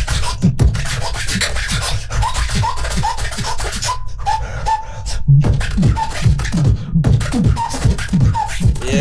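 Vocal beatboxing: a steady rhythm of deep kick drums that drop in pitch, with sharp clicks and snare hits and short high chirps laid over them. The beat breaks off briefly about four seconds in and again near seven seconds.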